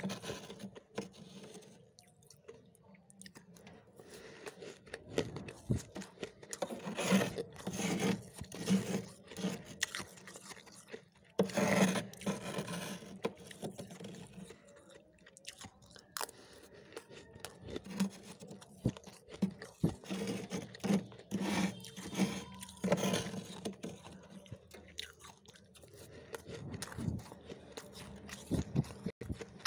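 Freezer frost being bitten and chewed: irregular crunching in clusters, with short quieter pauses between mouthfuls.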